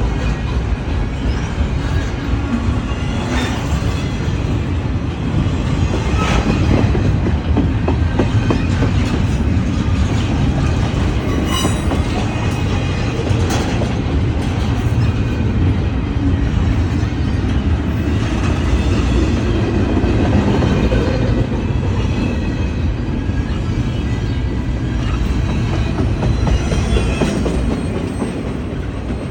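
Freight train cars rolling slowly past: a steady heavy rumble with wheels clicking over rail joints and faint wheel squeal.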